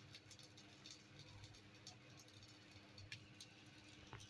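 Near silence: faint room tone with a low steady hum and a few soft scattered clicks.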